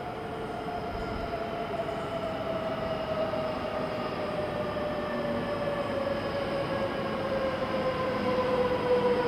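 E3 series Shinkansen coupled to an E2 series set, arriving slowly: its electric drive gives a whine of several tones that falls steadily in pitch as the train slows. The whine grows steadily louder as the train comes closer.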